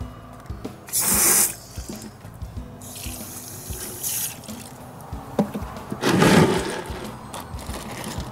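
Garden hose spray nozzle squirting water into a plastic bucket: a loud burst of spray about a second in, a softer hiss until about four seconds, then another loud rush of water around six seconds.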